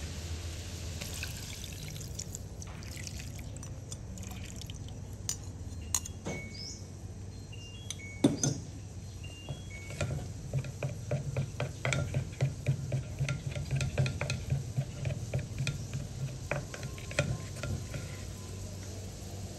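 Brown liquid sauce poured into a hot wok of baby octopus, with a couple of sharp knocks. From about halfway the sauce is bubbling in the pan with a fast popping rhythm.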